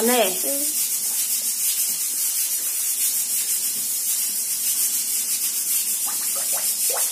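Steady high-pitched hiss with faint crackling from an open wood cooking fire, with a brief voice at the start and a few faint words near the end.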